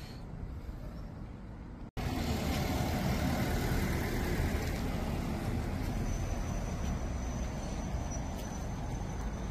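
Outdoor ambience of steady road-traffic rumble, after a brief dropout about two seconds in. A faint, steady, high-pitched whine joins it a few seconds later.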